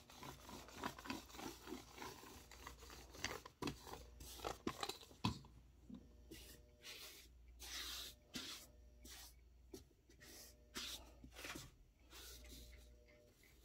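Sticky lint roller rolled back and forth over a cotton T-shirt, its adhesive sheet crackling as it pulls off the fabric in short, irregular strokes. Near the end, a hand rubs and smooths the fabric.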